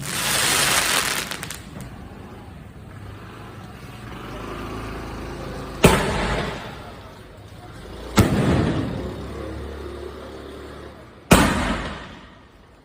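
Ayyan Funclub 2-inch, 24-shot multishot fireworks cake firing. A hissing burst at the start is followed by three sharp booms about two and a half to three seconds apart, each ringing away afterwards.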